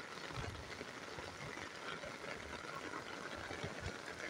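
Heavy rain falling with runoff water flowing, a steady hiss with scattered low thumps.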